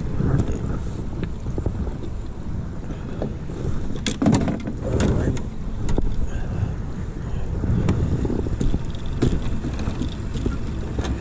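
Wind buffeting the microphone in a steady low rumble, with scattered knocks and clatter from the landing net and gear being handled on the boat's deck, a cluster of them about four seconds in.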